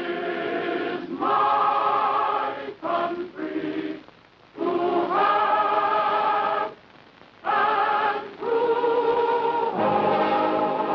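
Music with a choir singing long held notes in phrases, broken by two short pauses.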